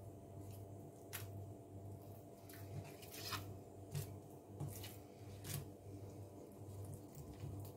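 Faint sounds of a kitchen knife slicing through a salmon fillet on a plastic cutting board, with several short clicks and scrapes as the blade and hands touch the board. A low hum sits under it all.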